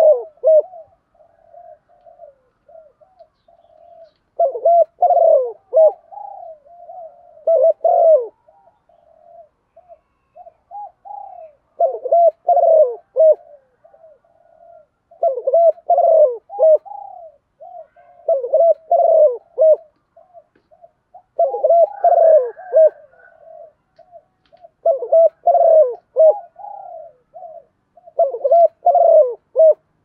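Female spotted dove cooing: about nine loud phrases of low coos, one every three to four seconds, with softer coos in between. It is the female's call that draws and excites male doves.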